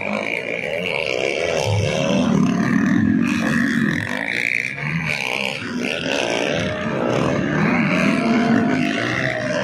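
Several motocross bikes racing, their engines revving up and down through the gears in overlapping rising and falling whines.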